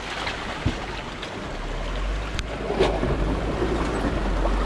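Creek water rushing over rocks under a low steady rumble from the Jeep Wrangler JK crawling through the creek bed, with a few sharp knocks from the rocks; the loudest knock comes about three seconds in.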